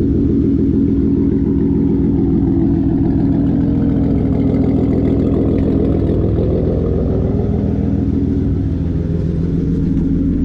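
Mk4 Toyota Supra's straight-six idling steadily, with only the exhaust note heard and no clutch chatter.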